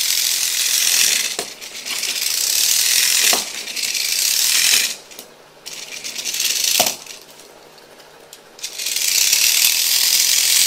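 Front-mounted electric motor and gear train of a Mini 4WD toy race car whirring as it runs, its batteries half spent. The whir drops away briefly around five seconds in and again for a couple of seconds before coming back near the end. There are a few sharp knocks as the car is handled or set down.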